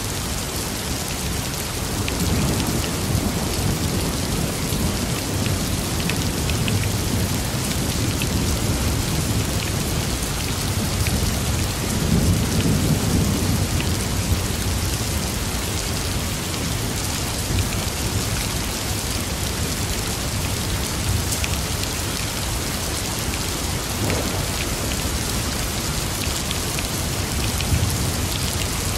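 Thunderstorm: steady rain falling, with low rolls of thunder swelling about two seconds in, loudest around twelve seconds in, and again near the end.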